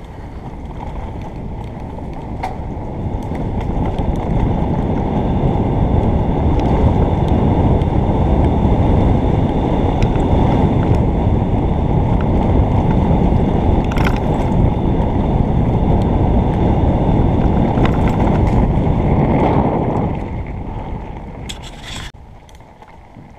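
Wind buffeting a helmet-mounted camera's microphone, mixed with the rolling rumble of a mountain bike descending a dirt forest trail. The noise builds over the first few seconds as the bike picks up speed, stays loud, and drops off near the end as it slows. A couple of sharp knocks from the trail come through midway and near the end.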